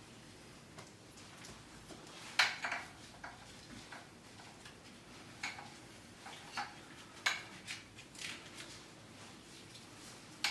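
Scattered light metallic clicks and clinks of handling, the sharpest about two and a half seconds in, as an air rifle and its fittings are handled.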